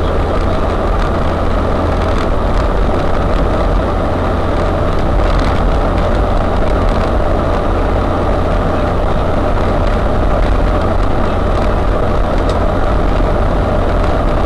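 UAZ-3909 'Bukhanka' 4x4 van driving, its engine running with a steady drone, with a few light knocks and rattles now and then.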